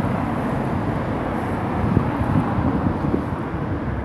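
Road traffic: cars driving past close by, a steady low rumble.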